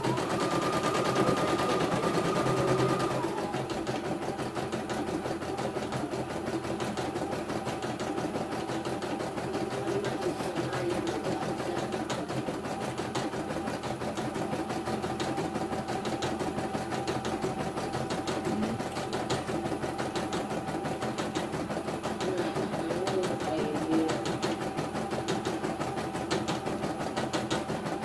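CNY E900 computerized embroidery machine stitching a design: a steady, rapid needle chatter over a motor whine, with a higher whine in the first three seconds.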